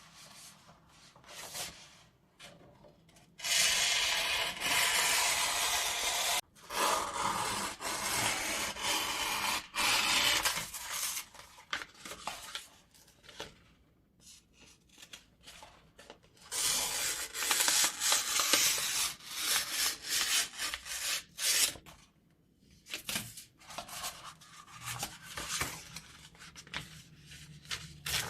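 New scissors slide-cutting through paper, each cut one long continuous hiss of the blades gliding through the sheet. There are several such cuts lasting two to five seconds, with quieter stretches of small clicks between them.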